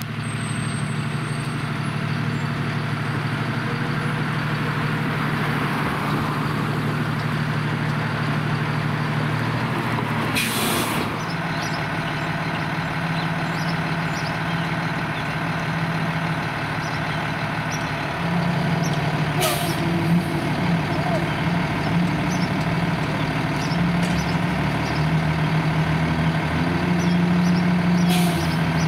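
Fire engine's diesel running at idle with a steady drone, broken by three short air-brake hisses about nine seconds apart.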